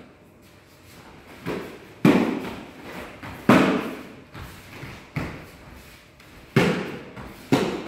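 Taekwondo sparring: about six sharp thumps of kicks landing on padded chest protectors, spaced unevenly, each trailing a short echo, the loudest about two and three and a half seconds in.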